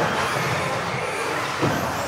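Several electric RC off-road buggies racing in a sports hall: high motor whines that rise and fall over a steady wash of tyre and drivetrain noise, with a light knock about a second and a half in.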